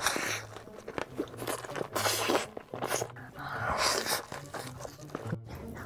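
Close-miked eating of spicy fire noodles by hand: three long, loud slurps with wet chewing and mouth clicks between them.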